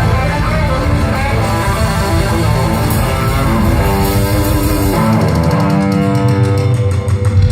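Live band playing an instrumental rock passage, guitar to the fore over bass. About five seconds in the low bass drops away and a quick run of even, rapid ticks comes in over the held guitar notes.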